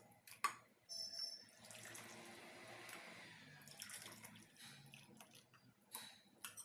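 Hot pearl millet rabri, a thick yogurt-based soup, being poured from the pan into a serving vessel: a faint pouring splash lasting a couple of seconds, with a few light clinks of utensils, one about half a second in and two near the end.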